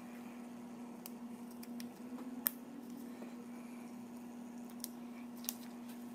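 Faint hand-handling of small drone-frame parts: a few small sharp clicks, the sharpest about two and a half seconds in, as little sleeves are pressed into TPU Vista mounts. A steady faint hum runs underneath.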